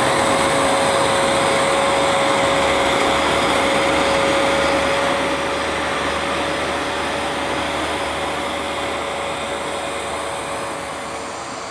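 Vax Platinum Power Max carpet washer running, a steady motor whine over a dense rushing suction noise, getting gradually quieter through the second half.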